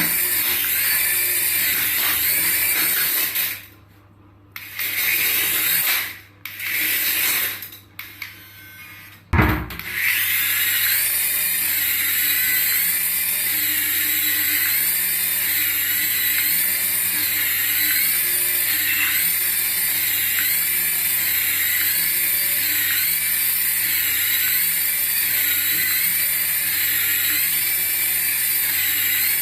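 Battery-powered toy running: a small electric motor whirring with a looping electronic sound effect that rises and falls about every two seconds. It cuts out and restarts several times a few seconds in, then runs steadily.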